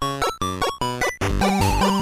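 8-bit chiptune music. It opens with short, detached chords, and about a second in it moves into a fuller passage: a wavering lead melody over a pulsing bass.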